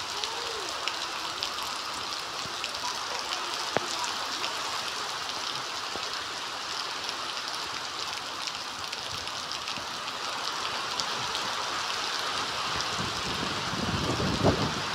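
Heavy rain falling steadily, a constant hiss with scattered sharp drop clicks, and a short, louder, lower rush near the end.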